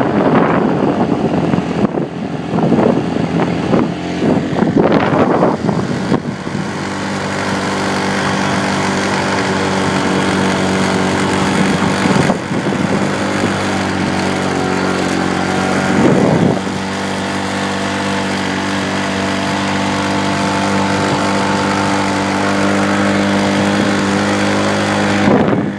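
Motorcycle engine running steadily under load on an uphill climb, heard from on the bike, with uneven rushing noise over it for the first six seconds and a brief dip in engine sound about sixteen seconds in.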